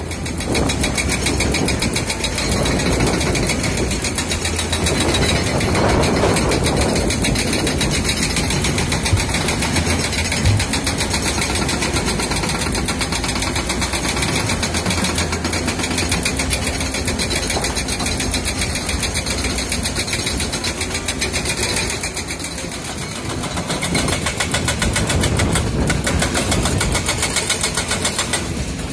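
Diesel engine of heavy earthmoving machinery running under load, with a fast steady pulse, its level swelling and easing off, and a short lull about three quarters of the way through.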